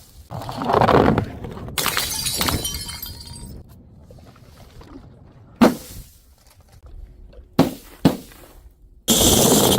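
Glass bottles shattering: a crash about two seconds in with tinkling shards dying away, a few sharp knocks, then another loud crash near the end.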